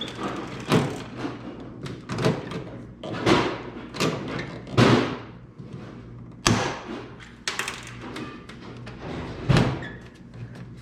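Irregular thumps and knocks, about six of them a second or two apart, from hands-on work fitting aluminium body panels on a race car, over a steady low hum.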